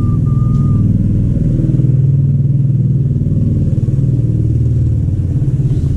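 A machine running with a steady low rumble.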